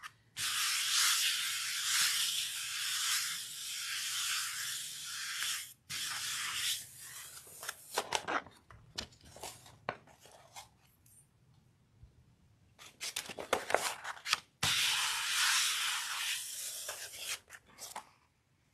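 Paper being rubbed down on a paint-covered gel printing plate and peeled off it: two long stretches of crackling, tearing-like rustle, with scattered clicks and taps of handling between them.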